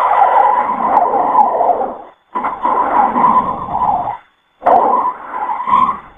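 Creature sound effect made from edited animal calls: three loud, harsh calls of about two seconds each, separated by short silent gaps.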